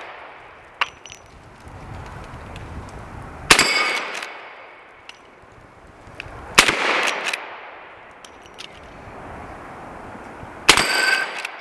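Three rifle shots from a Rossi R92 lever-action in .44 Magnum, three to four seconds apart, each with a short echoing tail. Faint clicks sound between the shots.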